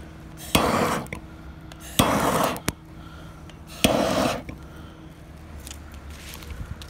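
Three crunching footsteps on loose gravel ballast, about a second and a half apart, over a faint steady hum.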